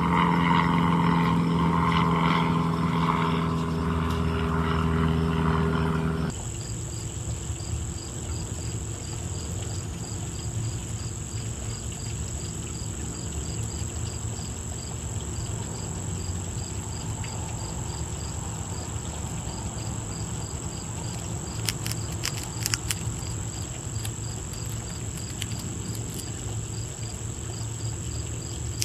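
A motor engine hums at a steady pitch and cuts off abruptly about six seconds in. After that, insects sound outdoors: a steady high buzz and rhythmic cricket-like chirping. A few sharp clicks come a little past the middle.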